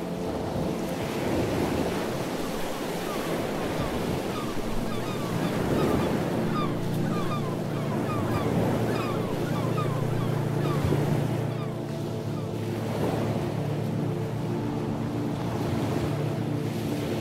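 Ocean surf in an animation soundtrack: a steady wash of waves. From about three seconds in there is a rapid run of short falling chirps, and a low sustained hum under the surf grows stronger in the second half.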